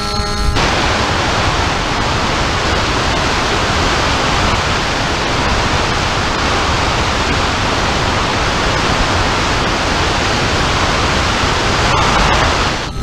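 Steady rush of wind over the onboard camera microphone of an FPV model plane in flight. The motor's whine stops about half a second in, leaving only the wind noise until it cuts off at the very end.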